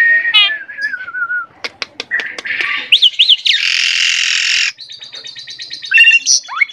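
Asian pied myna (jalak suren) in full song, the constant, energetic singing that keepers call gacor. It gives a varied run of whistled glides, sharp clicks and quick upslurred notes, then a loud harsh rasp about three and a half seconds in, followed by a fast rattling trill.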